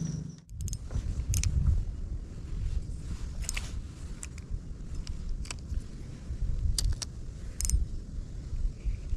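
Steady low rumble of wind on the microphone, with a handful of sharp clicks from handling a spinning rod and reel while casting and retrieving.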